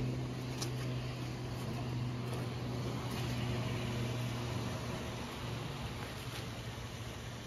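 Steady low hum under a haze of background noise, with a couple of faint ticks.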